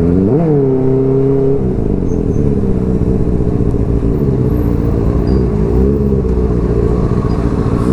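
Motorcycle engine running under way: the revs rise sharply about half a second in, hold briefly, then drop back, with a smaller rise and fall of revs later on.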